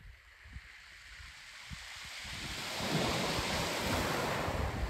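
Small waves washing onto a shingle beach, swelling from about two seconds in and holding. Wind buffets the microphone underneath.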